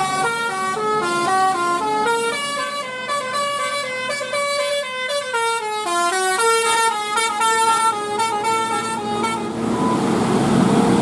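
Bus 'telolet basuri' musical air horn playing a quick tune of short stepped notes. It stops about nine and a half seconds in, giving way to a louder steady noise.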